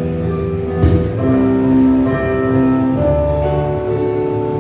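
Live acoustic band playing without singing: violin and keyboard hold sustained melody notes over a low bass line. There is one sharp percussive hit about a second in.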